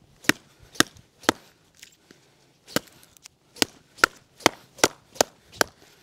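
Heavy Kampo knife, the civilian version of the Russian 6Kh9 bayonet, chopping into a piece of wood on a stump like a hatchet. Ten sharp chops: three in the first second and a half, a short pause, then seven quicker ones, about two or three a second.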